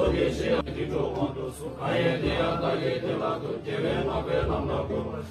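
A group of Tibetan Buddhist monks chanting prayers together in low, deep voices.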